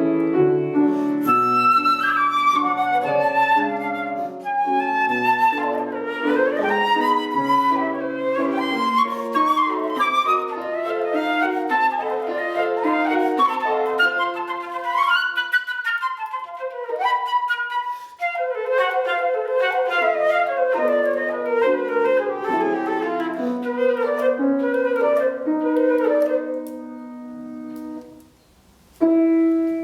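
Flute playing a fast, ornate melody over piano accompaniment in a classical recital piece. The low accompaniment drops out for a couple of seconds about halfway through, and the music stops briefly just before the end.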